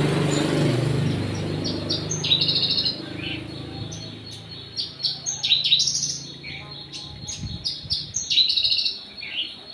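A small bird chirping in quick runs of short high notes, in bursts starting about two seconds in. A low steady hum under the first few seconds fades out.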